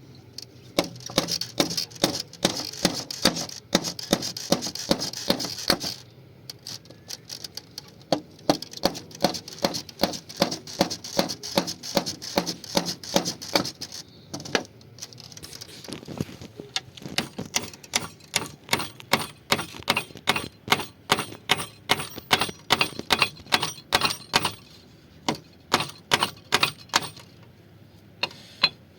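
A hammer striking wood in long runs of even blows, about three a second, while the cradle is being repaired. The runs break off twice for a second or two.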